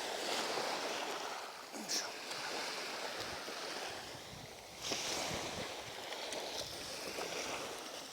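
Sea waves washing onto the shore, swelling and easing, with wind rumbling on the microphone.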